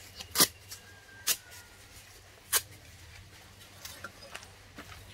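A few sharp clicks or taps, three louder ones in the first three seconds followed by fainter ticks, as of small hard objects being handled.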